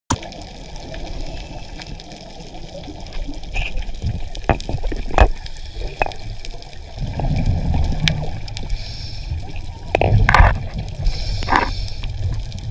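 Muffled underwater noise around a diver: a low water rumble, scattered sharp clicks and knocks, heavier rumbling bursts, and two short bursts of hiss in the last few seconds.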